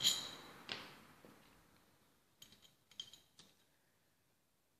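Metal parts of a disassembled starter motor clinking and knocking as they are handled on a table. A sharp, briefly ringing clink comes first, then a duller knock. A few lighter ringing clinks follow about two and a half to three and a half seconds in.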